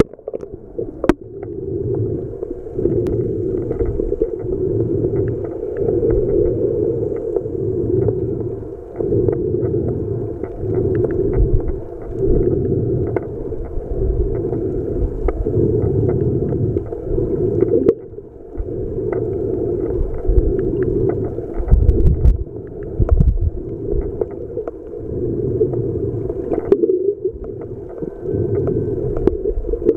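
Muffled underwater sound from a camera held just below the sea surface: a low rushing of moving water that swells and fades every few seconds, dotted with small clicks and crackles.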